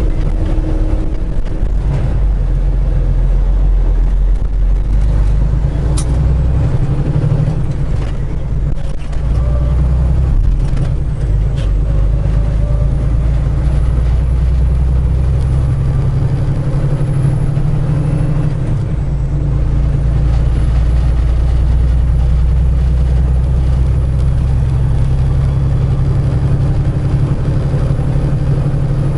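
Semi truck's diesel engine and road noise in a steady low drone, with a single sharp click about six seconds in.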